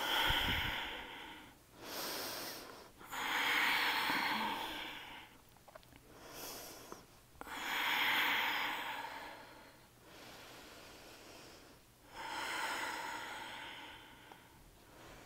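A woman breathing slowly and audibly as she holds a yoga stretch: several long breaths of one to two seconds each, with short pauses between them.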